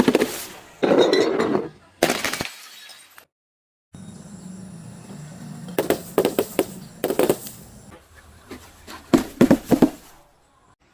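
Glass breaking and crunching as objects are crushed: groups of sharp cracks and shattering, broken by a sudden gap of silence about three seconds in.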